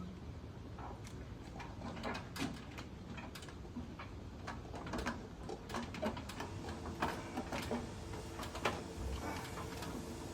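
Irregular knocks, clicks and bumps of a refrigerator being handled and moved by hand. From about six seconds in, a faint steady hum joins them.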